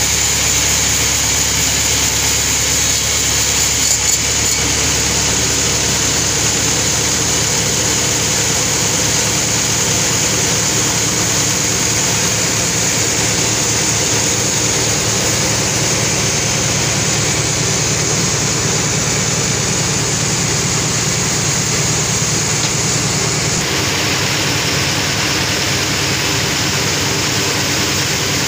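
Sawmill machinery running steadily with a continuous low hum and hiss; the sound changes abruptly about 24 seconds in.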